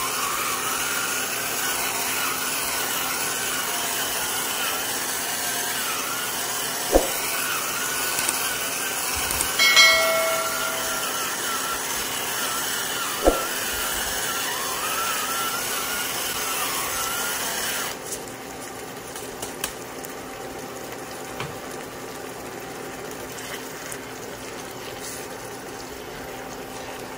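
Pepper grinder grinding black pepper over a simmering wok: a steady grinding whir that stops about 18 seconds in. After it stops, the pan simmering quietly remains.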